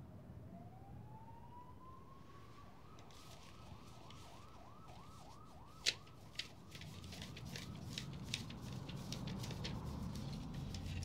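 A faint siren, first a slow rising wail, then switching to a fast yelp of about three sweeps a second. A sharp click comes about six seconds in, and small clicks and ticks follow through the second half.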